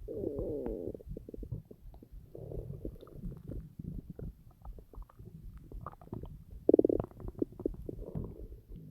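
Hungry stomach growling and gurgling: a wavering pitched growl at the start, then irregular bubbling gurgles and pops, with the loudest growl, a short squeal, about seven seconds in.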